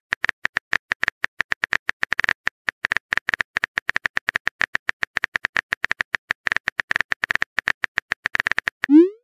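Rapid phone-keyboard typing clicks, one short tick per keystroke, about eight to ten a second with brief gaps.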